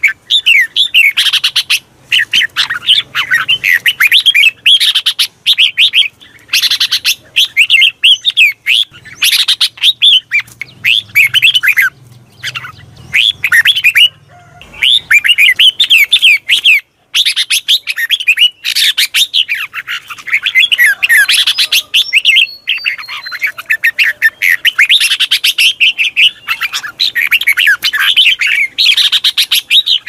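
Red-whiskered bulbul singing: a near-continuous run of fast, high chirping and whistled phrases, broken by a couple of brief pauses about halfway through.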